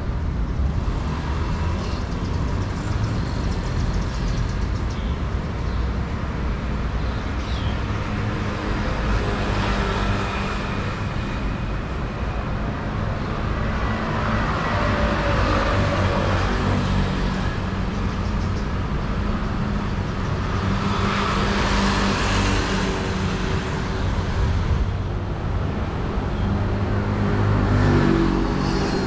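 Street traffic ambience: a steady low rumble of motor vehicle engines, with several vehicles swelling past and fading.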